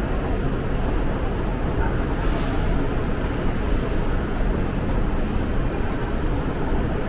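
Steady low rumbling noise of a subway station, with two brief hissing swishes about two and three and a half seconds in.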